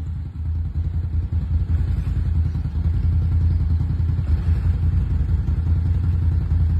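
Off-road vehicle engine running steadily, getting louder about a second and a half in.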